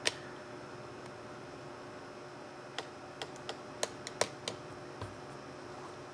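About nine short, sharp light clicks: one right at the start, then an irregular run of them about three to five seconds in, over a faint steady hum.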